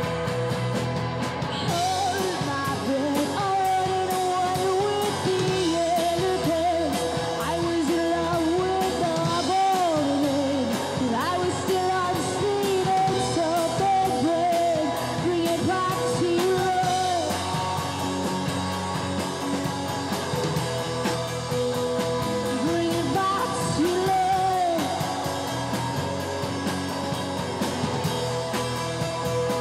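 Rock band playing live: a singer over guitar and drums keeping a steady beat. The vocal comes in about two seconds in, drops out past the middle, and returns briefly near the end.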